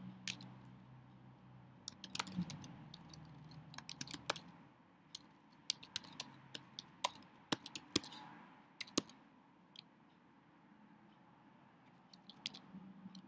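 Computer keyboard typing: irregular key clicks in quick runs for several seconds, a pause of a few seconds, then a few more clicks near the end.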